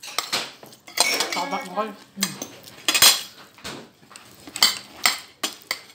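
Metal forks and a spoon clinking and scraping against plates, an irregular run of short sharp clinks.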